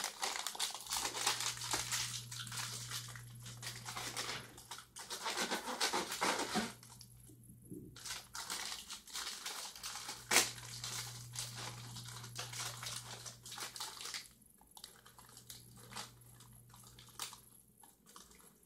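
Plastic snack bag of prawn crackers crinkling and rustling as it is opened and handled. The sound is densest for the first several seconds, then sparser with scattered clicks. A low steady hum comes and goes underneath.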